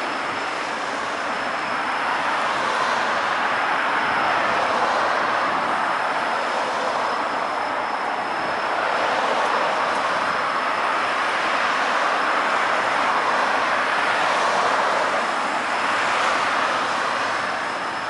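Cars passing one after another on a wet road, their tyre hiss swelling and fading several times as each goes by. A faint steady high tone runs underneath.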